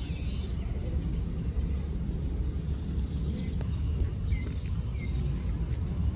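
Birds chirping: a high whistle about a second in, then two short, sharp chirps about four and five seconds in, over a steady low rumble.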